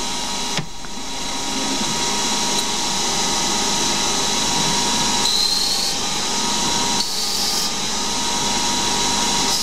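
Small CNC lathe running, its spindle and drives whining steadily while a turning tool cuts the outer profile of a spinning Delrin part. The pitch and level shift a few times, with a short rising whine about five seconds in.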